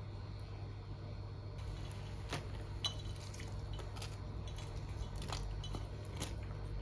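A spoon stirring soup in a nonstick frying pan, then a few light clicks and soft wet sounds as toppings are tipped in from a dish, over a steady low hum.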